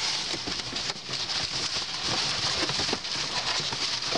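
Rummaging through a dumpster full of cardboard and crumpled paper: continuous rustling and crinkling of paper and cardboard, with many small knocks and clicks of scrap being shifted.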